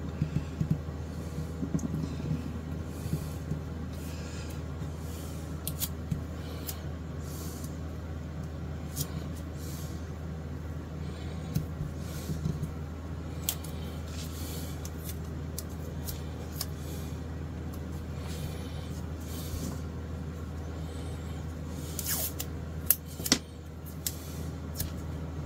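A steady low room hum under light handling noise: hands pressing a strip of plastic binding along the glued edge of a guitar neck, with scattered small clicks and ticks. There is a short cluster of sharper clicks near the end as the taping strips are handled.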